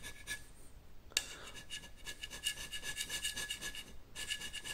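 Biax power scraper's blade scraping a metal surface plate in rapid, even strokes with a steady motor tone, taking down high spots to flatten the plate. It pauses just after the start, starts again with a click about a second in, and breaks off briefly near the end.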